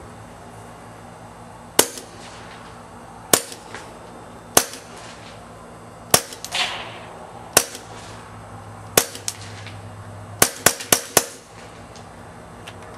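Browning Buck Mark .22 LR pistol with an SWR Spectre suppressor firing ten pretty quiet shots: six spaced about a second and a half apart, then four in rapid succession near the end. A fainter impact follows some shots a moment later as the bullets hit the backstop.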